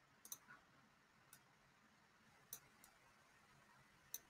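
Near silence broken by about five or six faint, scattered computer mouse clicks.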